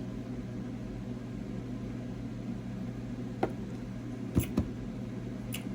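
Quiet room tone with a steady low electrical hum, broken by a few faint short clicks in the second half.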